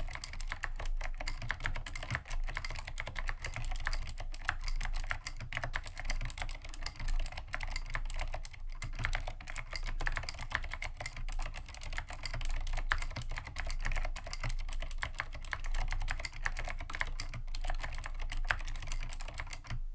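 Fast, continuous typing on a vintage Dolch PAC G80-1813 mechanical keyboard with clicky Cherry MX Blue switches and tall SA-profile keycaps: a dense, irregular stream of keystroke clicks, the keys bottoming out hard.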